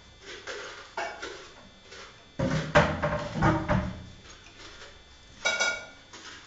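Malinois canary singing in short phrases, with a loud clattering, rapid stretch about two and a half seconds in and a brief clear ringing note about five and a half seconds in.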